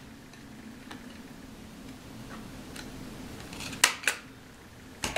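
Handheld corner-rounder punch clipping the corners of a paper tag: a sharp double click about four seconds in, the two snaps a quarter second apart, and another click at the very end.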